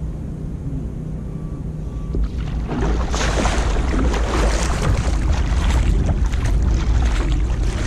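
Surfski being paddled hard: paddle blades splash into the water and water rushes along the hull, starting about three seconds in. A steady low rumble runs underneath.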